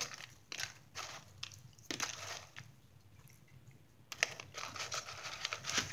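Scattered rustling and crinkling from things being handled on a table, in irregular short bursts that crowd together near the end.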